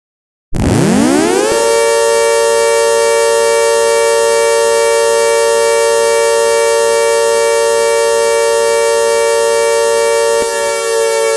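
ACA Hurricane outdoor warning siren sounding with an echo effect. It winds up in about a second from a fast rising wail to a loud, steady chord of several tones, and the chord shifts slightly about ten seconds in.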